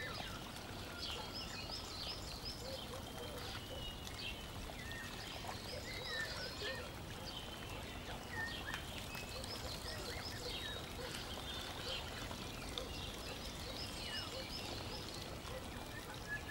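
Birds chirping and singing, short repeated trills and calls throughout, over a steady low background hiss.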